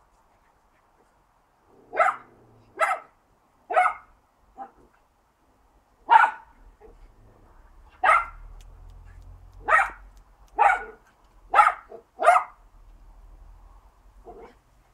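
Small dogs barking while play-fighting: about ten short, sharp barks at irregular intervals of roughly a second, with a fainter bark near the end.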